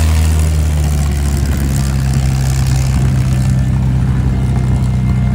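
A large piston engine running steadily at low speed. Its pitch settles slightly lower about half a second in, and a hiss over it drops away about three and a half seconds in.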